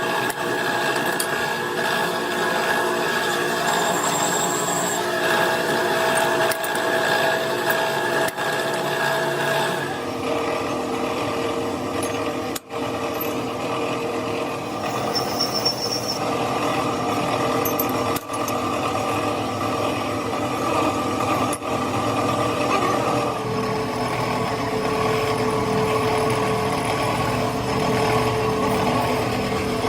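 A power tool running steadily, with a steady whine. Its pitch shifts abruptly twice, about ten and about twenty-three seconds in.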